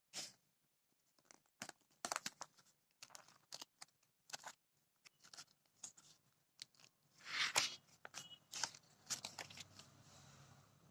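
Paper handling: journal pages being turned and pressed flat by hand, a string of short crisp rustles and flaps with one longer, louder swish of a page about seven and a half seconds in.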